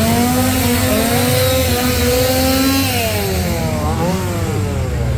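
Chainsaw engine running and revving up and down, its pitch rising and falling.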